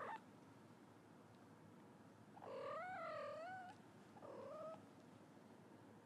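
Kitten mewing twice: a longer high mew that wavers up and down in pitch, then a short one.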